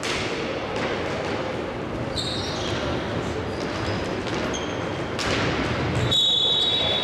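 Indoor hockey play in a sports hall: sharp knocks of sticks and ball that echo in the hall, over steady crowd and hall noise, with a few short high squeaks. About a second before the end a referee's whistle blows and holds.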